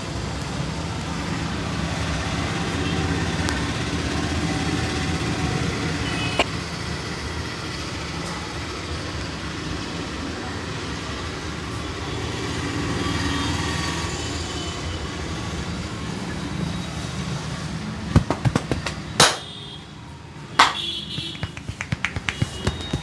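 Steady street traffic noise, then, from about three-quarters of the way in, a string of sharp slaps and clicks that quickens toward the end, the sound of hands striking during a massage.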